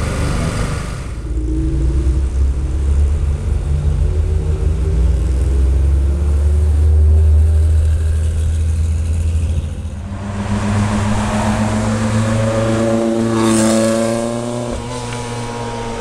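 Air-cooled flat-six of a Porsche 911 rally car running deep and low at low revs, then pulling away. About ten seconds in, another rally car's engine accelerates, its pitch rising, then eases off near the end.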